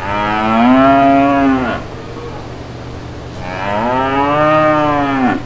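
Cattle mooing: two long moos, the second beginning about three and a half seconds in. Each rises slightly in pitch and drops at the end, over a steady low hum.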